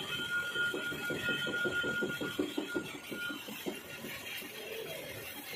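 Metal lathe turning a steel bevel pinion blank, the tool cutting with a steady high whine that fades out a little past halfway. Under it runs the lathe's mechanical noise with a fast, even rattle, about six or seven ticks a second, until a little before the end.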